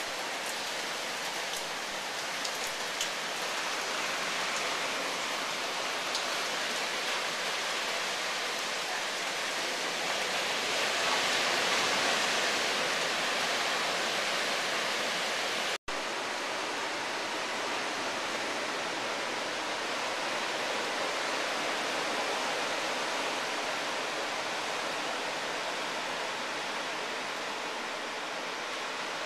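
Heavy rain falling, a steady hiss, with a few drops tapping on a hard surface in the first seconds. It grows a little louder around 11 to 13 seconds in, and cuts out for an instant about 16 seconds in before carrying on.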